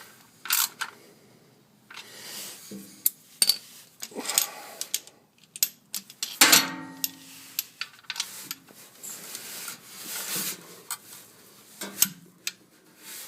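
Irregular metallic clicks and short scrapes of a socket wrench working on a steel oil drain plug as it is threaded back in and tightened.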